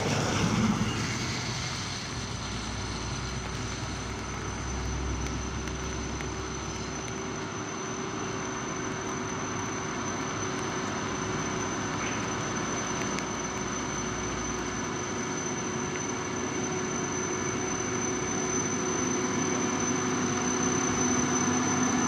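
Mitsubishi Fuso Fighter box truck's diesel engine running as it drives up a wet road, with a steady hiss of tyres on wet asphalt and drizzle. It grows gradually louder as the truck comes closer.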